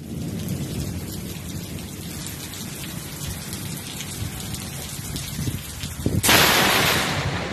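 Steady monsoon rain with a low rumble underneath, then about six seconds in a sudden loud crack of close thunder from a lightning strike, fading over about a second.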